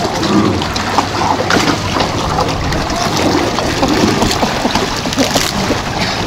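Personal watercraft (jet ski) engine running at low speed as it pulls away from a dock, with water churning and splashing around the hull.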